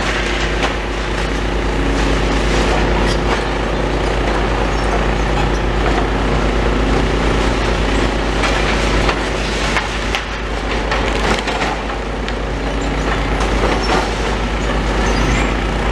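Demolition excavator engine running steadily, with repeated cracks and crunches of breaking concrete, glass and timber as it grabs and pulls at the wall.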